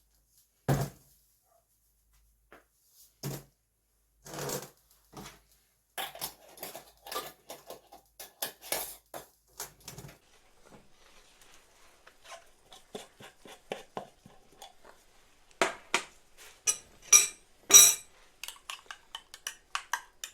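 Kitchen utensils and dishes knocking and clinking. A dull knock comes near the start, then a run of quick light clinks in the middle, and the loudest, brightest clinks come near the end.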